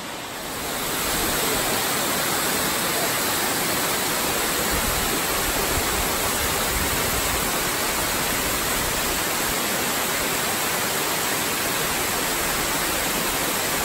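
Amicalola Falls, water cascading down a tall rock face, making a steady rushing hiss that grows louder about a second in.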